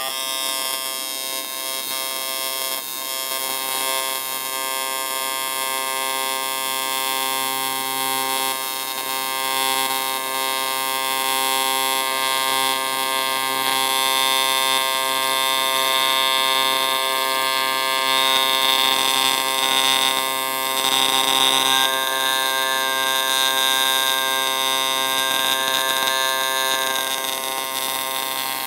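AC TIG welding arc from an inverter welder buzzing steadily while tack welding a 1954 Nash Healey cast aluminum cylinder head. The arc strikes sharply at the start, and a higher tone joins the buzz for a few seconds about two-thirds of the way through.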